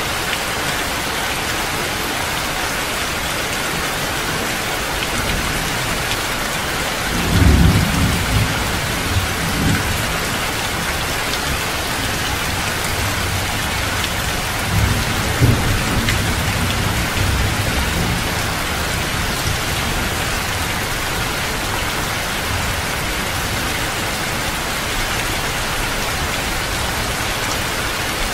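Heavy rain falling steadily, with low thunder rumbling about seven seconds in and again around fifteen seconds.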